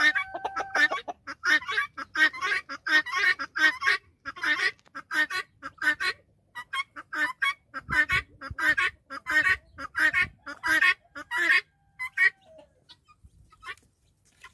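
Helmeted guinea fowl calling: a fast run of harsh, grating notes repeated three or four times a second, which thins out to a few scattered sounds about twelve seconds in.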